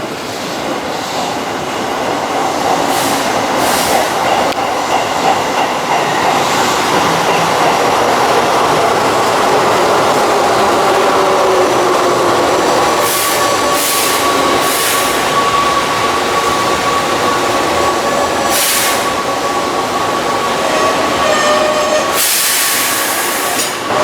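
Keihan electric train running into the platform, getting louder over the first few seconds. Its motor tone falls in pitch as it slows, a thin steady wheel or brake squeal runs through the second half, and short hisses of air come several times.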